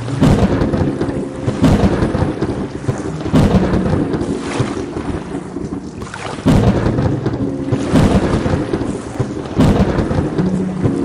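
Thunderstorm with steady rain and repeated rolls of thunder. Loud swells break in about every one and a half to three seconds, the largest about six and a half seconds in.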